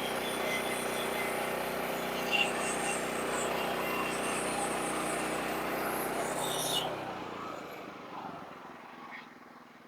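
Sawmill engine running steadily, then cutting out about seven seconds in and dying away.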